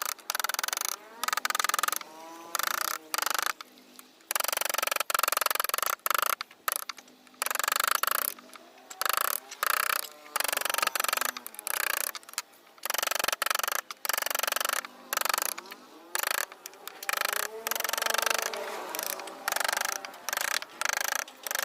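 Repeated scraping strokes of a wood-carving chisel cutting into wood, each stroke lasting about half a second to a second and a half, in an irregular rhythm with short pauses between.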